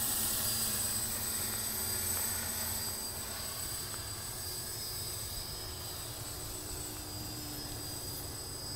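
Motors and propellers of a GPS-stabilised multirotor FPV drone whining steadily in flight, the pitch wavering slightly.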